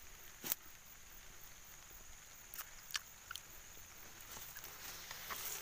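A few sharp crackles of dry fallen palm fronds and leaf litter underfoot, the loudest about half a second in and three more close together around three seconds in, over a faint steady high-pitched whine.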